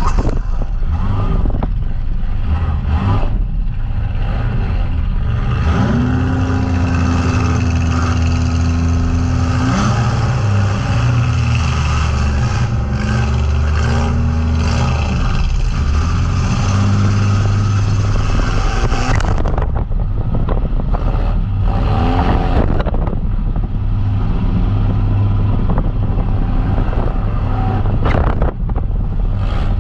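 Compact demolition derby car's engine, heard from inside the gutted cab, running hard and revving up and down. Several sharp metal crashes come through, most of them in the second half.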